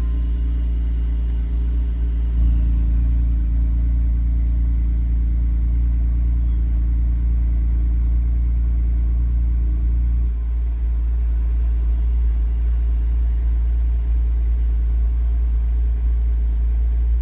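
Porsche 997.2 Turbo S twin-turbo 3.8-litre flat-six idling, heard from inside the cabin. The idle note steps up slightly about two seconds in and settles back about ten seconds in.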